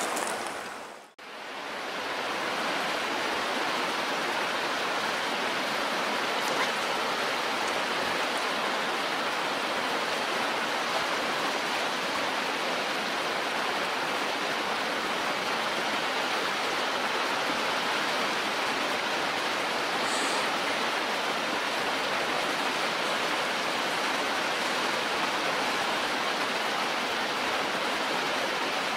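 Steady rush of flowing river water, dipping out briefly about a second in before running on unchanged.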